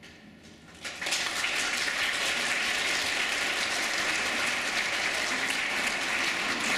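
Audience applauding, the clapping breaking out about a second in after a brief lull and going on steadily.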